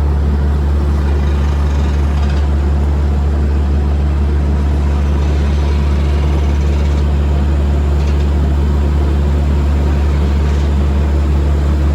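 Air compressor running steadily with a continuous low drone, supplying air that blows a pull rope through a 4-inch conduit.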